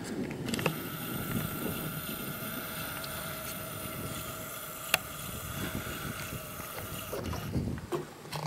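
A motor's steady whine with several pitches, starting sharply about half a second in and cutting off sharply near the end, with one sharp click partway through. Low wind and handling rumble run underneath.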